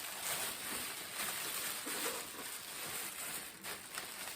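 Rustling and handling noise of packaging as a vacuum part is unwrapped.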